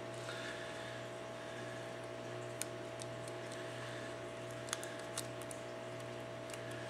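Steady low electrical hum with three small sharp clicks, one about two and a half seconds in and two close together about a second later: a tool working at the LG G2's board connectors.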